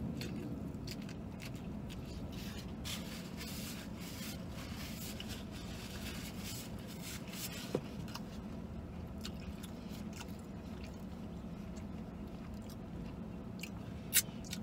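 A man biting into and chewing a crispy fried chicken sandwich, with crunching and the rustle of paper wrappers, inside a car cabin. A steady low hum sits underneath.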